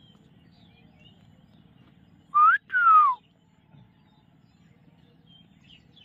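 A loud two-part whistle about halfway through: a short rising note, then a longer falling one.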